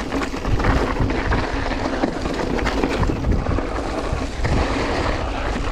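Mountain bike riding fast over loose, shaley rock: tyres crunching and skittering on stones and the bike clattering with many small knocks, with wind buffeting the GoPro's built-in microphone.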